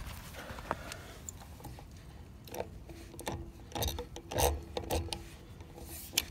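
Steel socket and extension turned by a breaker bar, working against a Gorilla locking lug nut on a trailer wheel: a run of short metallic clicks and scrapes, roughly two a second from about two and a half seconds in, as the forced-on socket grips and works the nut.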